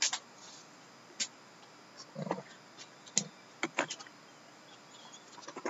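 Short, irregular clicks and taps of trading cards and a cardboard hobby box being handled and set down on a table.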